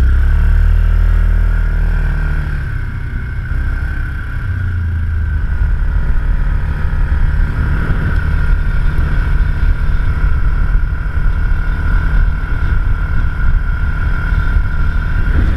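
ATV engine heard from the rider's seat, running at steady riding speed with a low rumble, easing off briefly about three seconds in before pulling steadily again.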